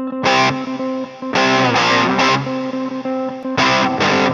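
Music with guitar: held notes broken by loud, distorted chord hits about a quarter second in, again from about a second and a half, and near the end.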